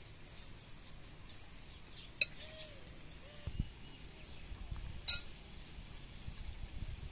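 Metal spoons clinking and scraping against china plates as people eat, with two sharp clinks, the louder one about five seconds in.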